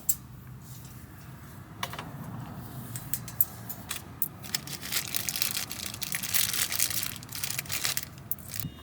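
Rustling and crinkling of things being handled, with a few light sharp knocks; the rustling is strongest in the second half.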